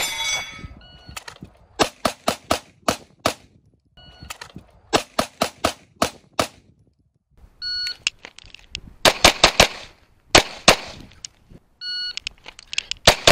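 Several strings of rapid semi-automatic pistol fire, each of about six to eight shots, each started by the short electronic beep of a shot timer; there are four beeps and strings in all. Right at the start a shot is followed by a brief metallic ring, as of a hit on a steel target.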